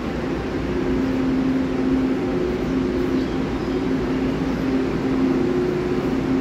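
Stationary EMU500-series commuter electric multiple unit standing at the platform, its onboard equipment giving a steady hum made of two low tones over a background rush.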